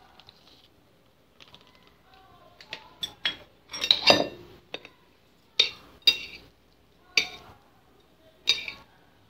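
A metal utensil clinking and scraping against a ceramic plate while mixing instant noodles: a cluster of clinks about three to four and a half seconds in, then single sharp, ringing clinks roughly every second.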